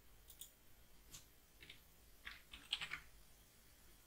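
Faint typing on a computer keyboard: about half a dozen separate key presses at an uneven pace.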